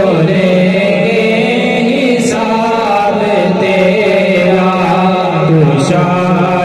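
A solo male voice singing an Urdu naat without accompaniment, holding long notes that bend and waver in pitch in a chant-like style.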